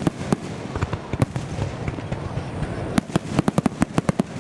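Fireworks going off in quick succession as sharp cracks and bangs. They are sparse for the first couple of seconds, then a dense rapid volley begins about three seconds in.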